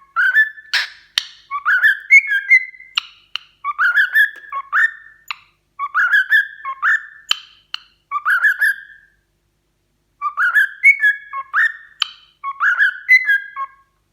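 Pet cockatiel whistling a tune in short repeated phrases of rising notes, with a pause of about a second partway through. There are two sharp clicks about a second in.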